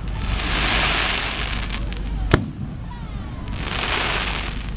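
Large aerial firework shells: two long spells of dense crackling hiss, the first lasting nearly two seconds and the second about a second near the end, with one sharp bang a little over two seconds in.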